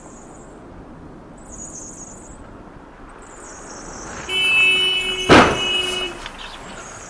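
A car horn sounds for about two seconds, and partway through it comes a single loud crash of one SUV hitting another, the loudest sound here. A steady hiss of street noise runs beneath.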